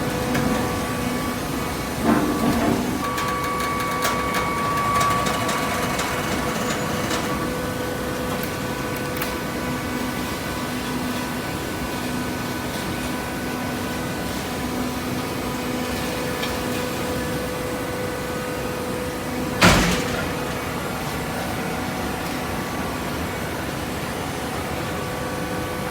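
Cardboard baler running with a steady machine hum. There are a few knocks about two seconds in and a single loud bang about twenty seconds in.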